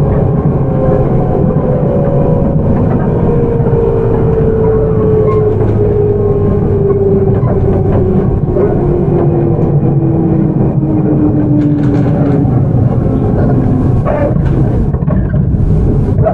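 Ride in a JR 211 series motor car: the whine of its MT61 traction motors falls steadily in pitch as the train slows, over the steady rumble of the wheels on the rails. A few light clicks come near the end.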